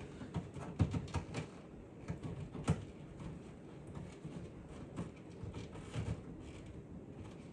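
Scattered light clicks and taps of hand work on plastic console trim: parts and screws being handled and fitted, with a sharper knock about two and a half seconds in.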